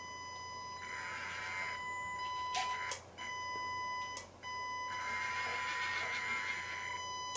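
Small brushed motor and gearbox of a 1/16 Reely Mini Freemen RC crawler driven at low throttle: a steady high-pitched whine, broken twice for a moment, with a rasp of the drivetrain while the car rolls, about a second in and again from about five seconds.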